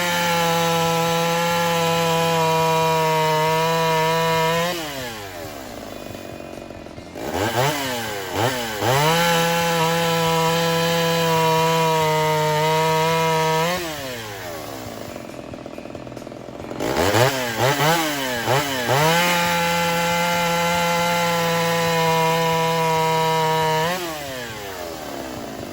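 A ported Homelite Super XL-130 two-stroke chainsaw is revved to full throttle three times. Each time it sweeps up fast, holds a steady high pitch for about five seconds, then drops back to idle. At full throttle it runs clean without four-stroking, during carburetor adjustment after a timing advance.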